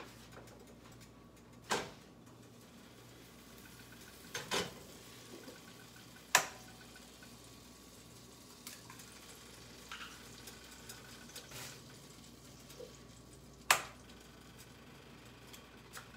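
Low sizzle of butter and bread frying in pans, broken by a few sharp knocks, the loudest about six and fourteen seconds in, as eggs are cracked against a skillet.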